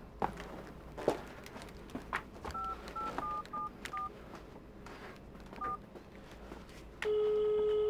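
A mobile phone being dialled: six short keypad beeps, then the ringing tone of the outgoing call comes in about seven seconds in and holds for about a second. There are a few handling clicks before the beeps.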